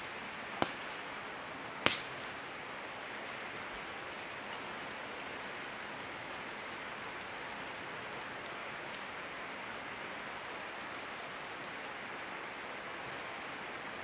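Wood campfire crackling, with two sharp pops, about half a second in and a louder one about two seconds in, and faint ticks after, over the steady rush of a river.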